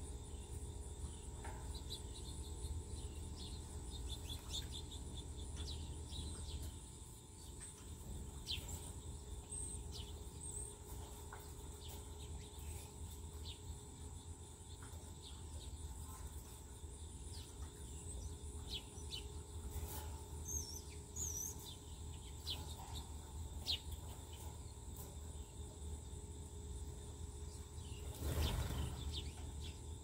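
Outdoor backyard ambience: a steady high insect drone, with scattered short bird chirps and calls throughout, over a low rumble. About 28 seconds in, a brief louder rushing sound swells and fades.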